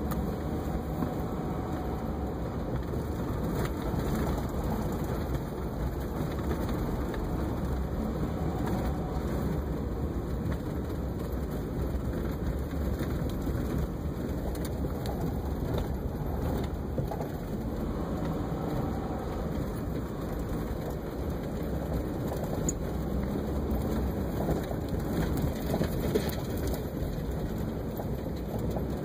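Steady road noise inside a moving car on a snow-covered highway: tyres running through snow with a low engine and drivetrain rumble.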